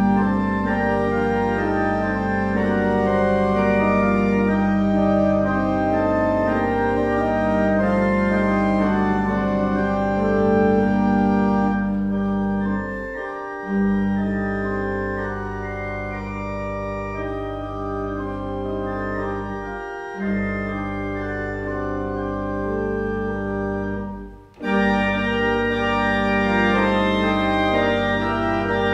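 Church pipe organ playing a chorale in sustained chords over a steady low pedal note, beginning out of silence and breaking off briefly three times between phrases.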